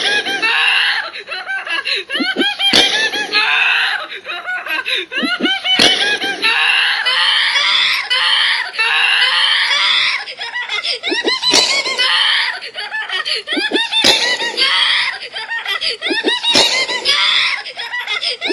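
A high-pitched voice laughing and screaming, the same cries repeating over and over every few seconds. A sharp click marks each repeat.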